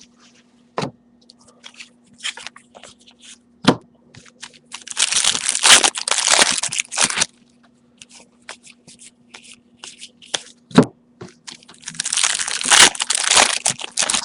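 Trading-card pack wrappers being torn open and crinkled, in two stretches of about two seconds each, with a few sharp taps in between.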